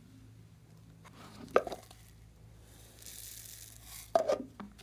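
Hard plastic pineapple-shaped container being handled and its lid pulled off: a sharp plastic clack about a second and a half in, a soft hiss, then a quick run of clacks near the end as the lid comes free and foam beads tip out.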